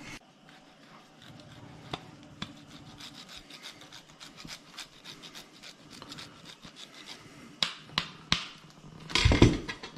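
Scraping and rubbing with many light ticks, three sharper clicks about three quarters of the way through, and a heavy thump just before the end.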